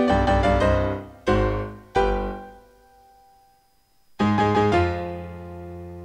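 Solo piano music: a few quick notes, then two struck chords that ring and fade away, a pause of about a second and a half, and a new group of chords that rings on and slowly fades.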